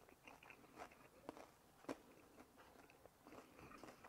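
A person chewing a mouthful of crisp grilled baguette topped with baked minced beef and cheese: faint, irregular crunching of the crusty bread.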